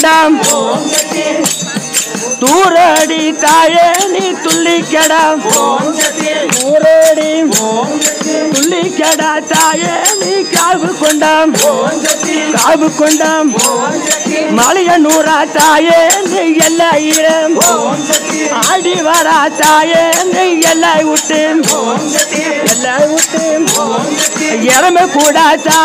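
Tamil devotional bhajan: a male voice sings a gliding, wavering melody over handheld frame drums with jingles, struck in a fast, steady beat with a constant jangle.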